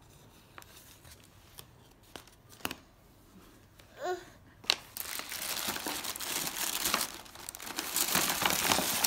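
Kraft paper mailer bag being torn open and crinkled by a toddler's hands. It starts with a few light taps and rustles, then turns into dense, continuous paper crackling and tearing from about five seconds in.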